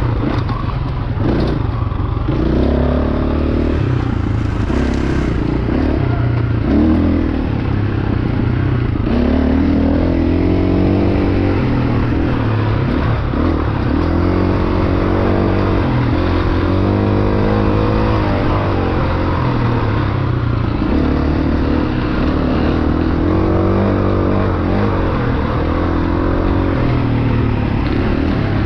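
Dirt bike engine revving up and down on and off the throttle over and over as the bike is ridden along a tight single-track trail, with the rattle of the bike over the ground underneath.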